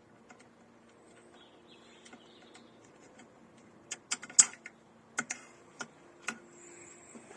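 Light clicks and knocks of parts being handled while refitting a Tohatsu 3.5 HP outboard's lower unit and shift rod. They are sparse at first, then come as a cluster of sharper knocks about four seconds in, the loudest among them, followed by a few single knocks.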